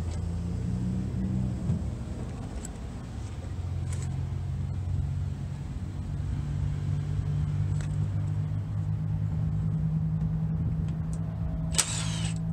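An engine idling with a steady low hum throughout, with a few faint metallic clicks of tools. Near the end a cordless power tool spins up briefly with a high whine as it backs out a transmission pan bolt.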